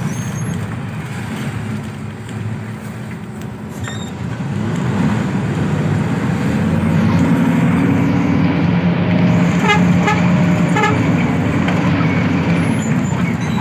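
Intercity bus running on the road amid traffic, its low engine rumble growing louder about five seconds in, with a vehicle horn sounding.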